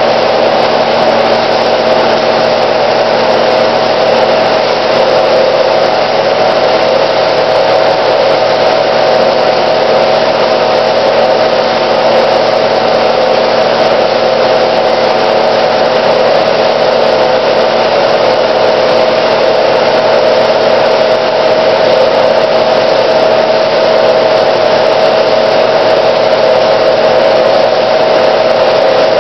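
Bank of froth flotation cells running: the impeller drives give a steady hum over an even hiss, with no change in level.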